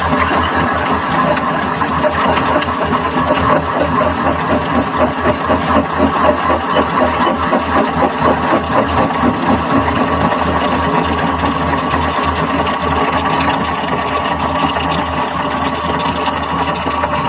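Metal lathe running steadily, with a regular pulsing about four times a second through the middle that evens out toward the end.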